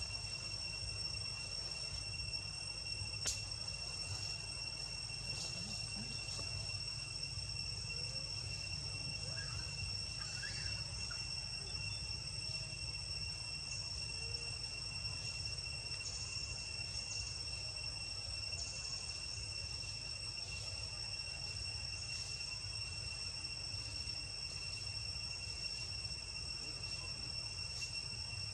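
Steady insect chorus, two high unbroken drones, over a low rumble. One sharp click about three seconds in.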